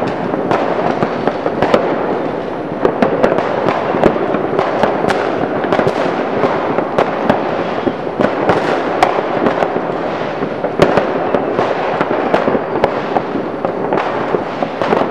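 Mass New Year's fireworks going off all at once: countless overlapping bangs and crackles merge into an unbroken din, with many sharp single cracks standing out above it.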